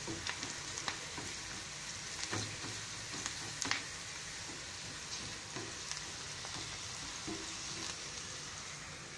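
Sliced onions, green chillies and dried red chillies sizzling in hot oil in a nonstick frying pan, stirred with a wooden spatula. There is a steady sizzle with scattered sharp pops and spatula knocks, the loudest about a third of the way in.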